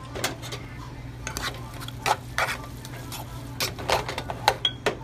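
A utensil stirring and mixing noodles in a frying pan, with irregular clinks and scrapes of the utensil against the pan, over a steady low hum.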